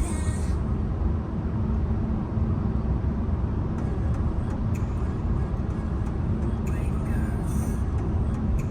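Steady low road and engine rumble of a moving Renault Samsung SM3 car, heard from inside the cabin.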